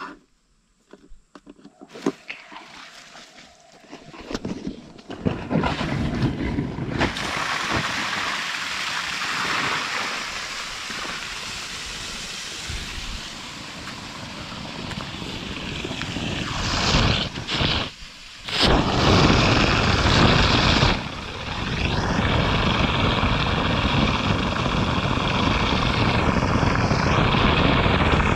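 A homemade ejector made from sewer-pipe fittings and a plastic bottle, driven by an electric pump, starts up about five seconds in and runs steadily with a loud rush of water. Near the end its corrugated suction hose is drawing at the sand.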